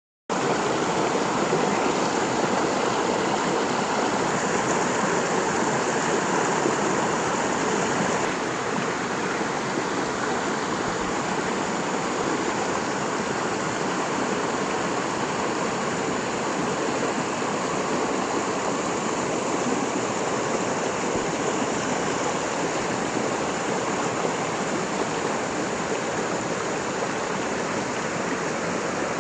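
Waterfall rushing steadily, an even roar of falling water that drops a little in loudness about eight seconds in.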